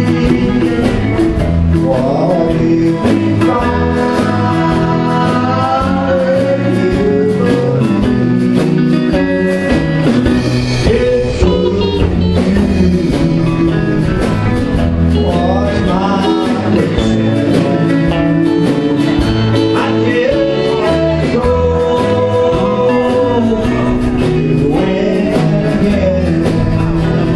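Live country music: a man singing lead over acoustic guitar and other stringed instruments.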